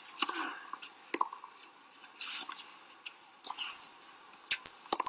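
Tennis rally on a clay court: a series of sharp racket-on-ball strikes, roughly a second apart.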